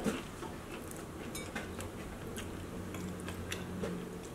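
Quiet eating at a table: chewing of battered fried fish bites with small scattered clicks of cutlery and fingers on plates. A faint low steady hum comes in about halfway through.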